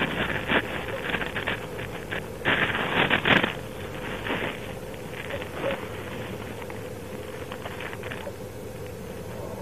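Gusts of wind buffeting the microphone during the first few seconds, then a lower steady hiss with a faint constant hum.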